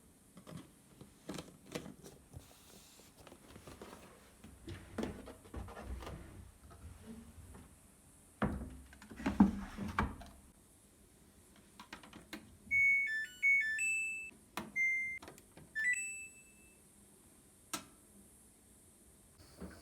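Knocks and clicks of objects being handled, then a quick run of electronic beeps at several different pitches, like a short chime tune from an appliance or device, followed by a single sharp click.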